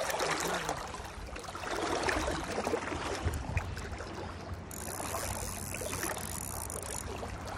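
Creek water rushing through a shallow riffle and sloshing, with small scattered splashes. For about two seconds past the middle, a thin high whine sits above the water.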